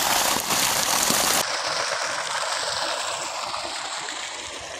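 Water gushing from the outlet of a 3-inch pipe into a field channel, driven by a 7.5 hp DC solar pump at full delivery. It is a loud, steady rush that drops abruptly about a second and a half in, leaving a fainter steady rush that fades away.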